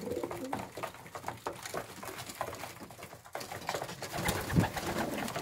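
Homing pigeons cooing in the loft, with scattered light taps and scratches. One low coo is louder about four seconds in.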